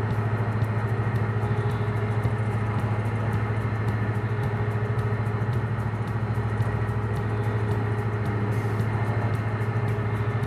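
Heavy engine on a timber-hauling crane barge running steadily: a constant low hum that holds one speed throughout.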